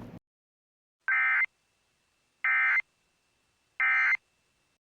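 Three short bursts of the Emergency Alert System's digital data tones (SAME code), about a second and a half apart: the end-of-message signal that closes an EAS alert.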